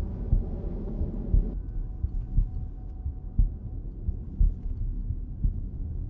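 Deep, evenly spaced low thumps about once a second, like a slow heartbeat or a muffled bass beat, over a low rumble that thins out about a second and a half in.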